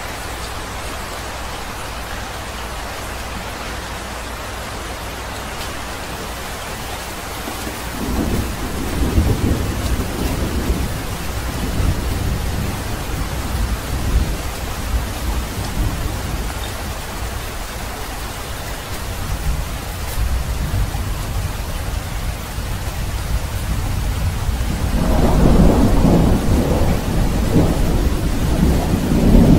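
Steady rain falling, with low rumbles of thunder starting about eight seconds in and a louder, longer rumble of thunder near the end.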